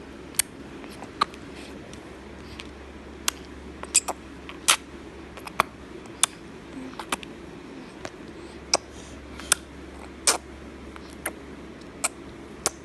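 A baby smacking and sucking with her lips and tongue, making a string of short, sharp wet clicks at uneven intervals.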